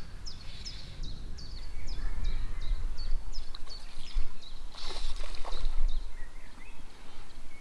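Low rumble of wind buffeting the microphone, with a small bird calling a quick series of short falling chirps, about three a second, through the first half. There is a brief rushing sound about five seconds in.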